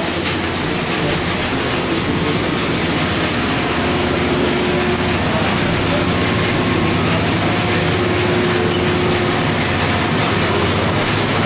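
Steady engine-room machinery noise aboard a steam-powered sternwheeler: the running steam plant gives a constant low hum under a broad hiss.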